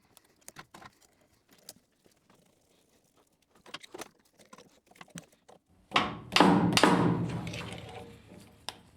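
Small metal clicks and handling noises, then about six seconds in a loud metallic bang that rings and fades over a couple of seconds. It comes as the improvised pulley-holding tool gives way while he tries to break the spindle pulley nut loose.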